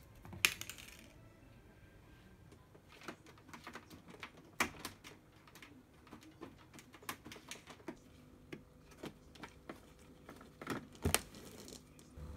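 A cat pawing and batting at a plastic automatic pet feeder inside a wire cage, trying to get at food before mealtime: irregular light clicks and taps of paws and claws on plastic. A louder knock comes about half a second in, and two sharper knocks near the end.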